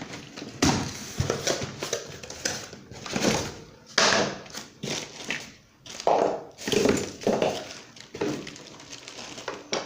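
Cardboard box and packaging being handled and opened: irregular rustling, scraping and dull thunks as ceiling-fan parts are pulled out.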